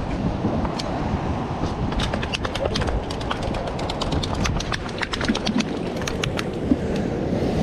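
Wind on the microphone and surf washing against jetty rocks, with a quick run of light clicks and taps from about two seconds in until near the end.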